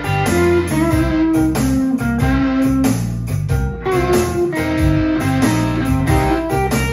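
Explorer-style electric guitar played through an amplifier, picking a single-note lead melody with held notes. A steady bass line and drum beat run underneath.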